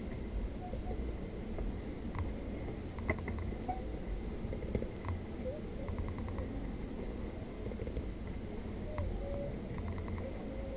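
Small brush scrubbing liquid cleaner across the back of a graphics card's circuit board: light scratching with scattered short clicks, over a low steady hum.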